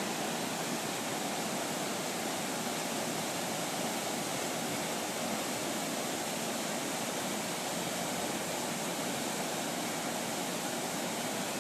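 Floodwater rushing in a steady, unbroken stream.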